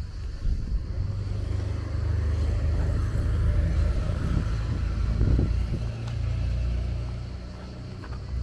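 A car passing close by: a low rumble of engine and tyres that builds to its loudest about five seconds in, then fades.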